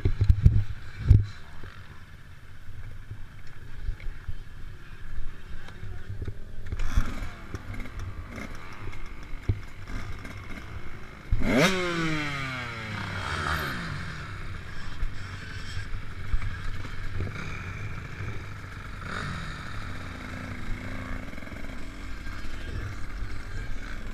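Motocross bike engine idling, with a few throttle blips. The biggest, about eleven seconds in, revs up sharply and falls back over a couple of seconds.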